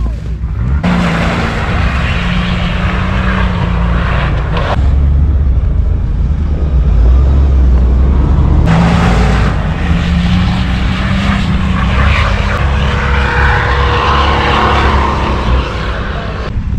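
Vehicle engine running loud while driving off-road, under a heavy low rumble with rough noise over it. The revs pick up about a second in and again about nine seconds in.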